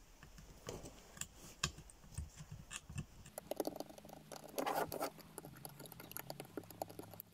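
Small screwdriver tip scraping and clicking against a circuit board, prying at a chip glued down with resin: a run of faint scratches and ticks, thickest about four to five seconds in. A faint low hum comes in about three seconds in.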